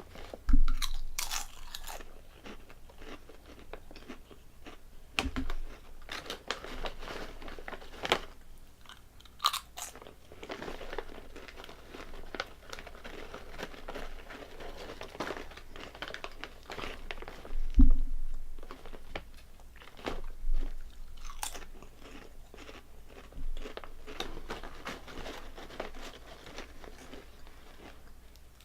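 A person biting and chewing Calbee Honey Butter potato chips, crisp crunching that comes in repeated bouts of bites. There is a single heavier thump about two-thirds of the way through.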